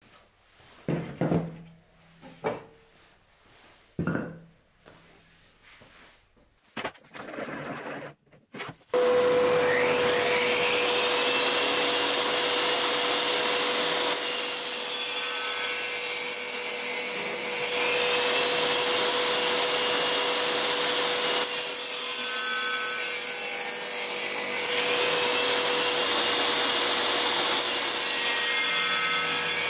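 A few wooden knocks, then a benchtop table saw running from about nine seconds in with a steady hum, ripping wooden blocks into square turning blanks in three passes, each adding a harsh high hiss as the blade cuts through.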